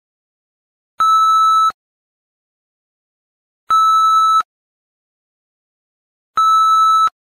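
Countdown beeps: three identical steady electronic beeps, each under a second long, evenly spaced about two and a half seconds apart with silence between, one for each number counted down.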